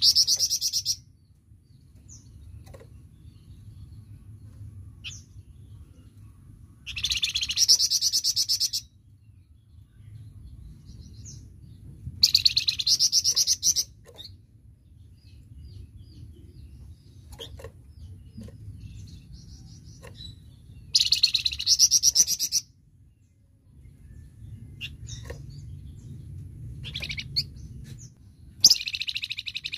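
A flamboyan songbird singing loud, rapid trilled bursts of about two seconds each, roughly every six to eight seconds: five bursts, with soft short chirps in between. A steady low rumble runs underneath.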